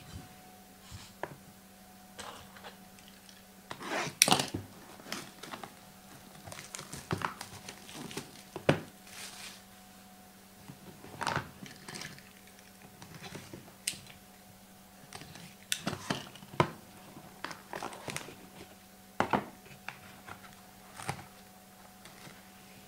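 Plastic shrink-wrap crinkling and tearing as it is stripped off sealed trading card boxes, with irregular crackles, rustles and small clicks as the cardboard boxes and hard plastic card cases are handled.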